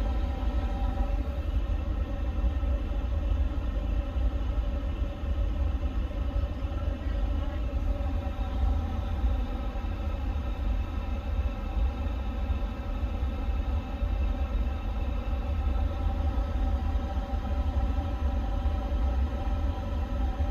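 Steady flight-deck background noise of a parked Airbus A350: a constant low rumble with several unchanging fan-like whining tones from the cockpit ventilation and equipment cooling.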